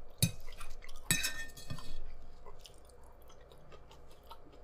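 A metal fork clinks against a plate twice within the first second or so, then quiet chewing of food in the mouth.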